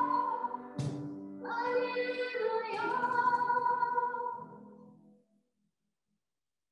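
Congregation singing a hymn, the last held note dying away about five seconds in, then silence.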